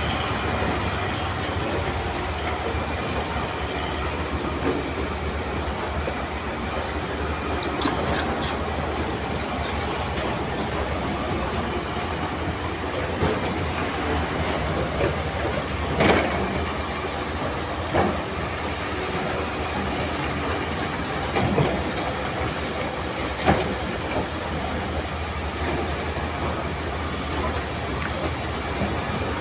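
Tracked hydraulic excavators digging earth and rock: a steady diesel engine hum with sharp clanks of steel buckets and tracks, several of them in the second half, the loudest about halfway through.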